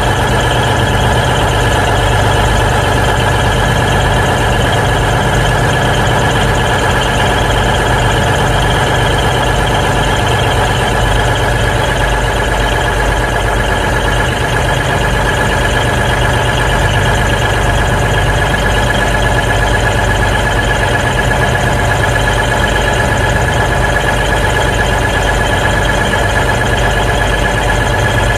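Class 220 Voyager's underfloor Cummins QSK19 diesel engine idling steadily, heard close beneath the car, with a steady high whine alongside.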